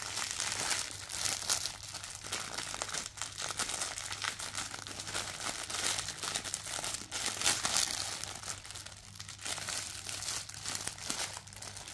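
Clear plastic wrapping crinkling unevenly as hands handle and work at a cellophane-wrapped item.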